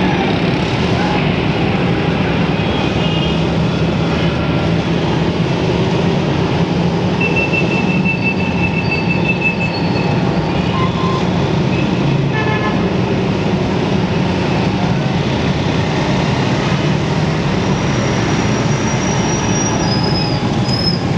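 A motorcycle riding through dense traffic: a steady engine hum and road noise, with a few high horn tones from surrounding vehicles, one held for about three seconds near the middle and shorter ones near the end.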